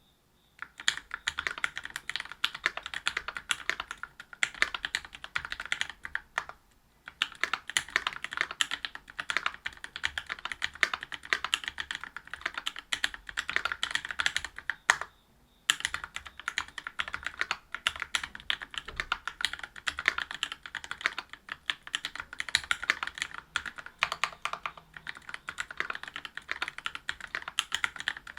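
Fast continuous typing on a mechanical keyboard with Gateron Milky Red Pro linear switches (45 g) in a brass-plated Whale 75, GMK keycaps clacking, with two brief pauses.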